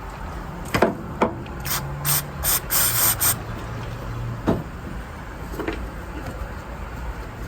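A car engine idling with a steady low rumble, broken by a few sharp mechanical clicks and a quick series of short hissing bursts around the middle.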